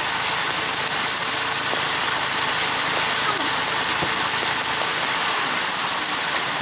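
Land Rover Defender idling while stopped in a shallow rocky stream, under the steady rush of the flowing water.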